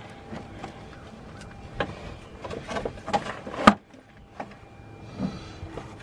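Scattered knocks and clicks from handling around the car, with one sharp, loud click about two-thirds of the way through.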